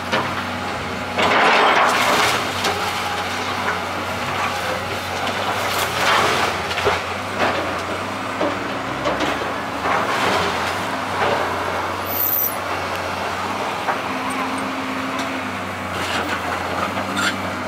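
Komatsu excavator's diesel engine running steadily while it tears into a wood-framed building, with bursts of crunching, splintering timber and clattering debris every few seconds, the biggest about a second in.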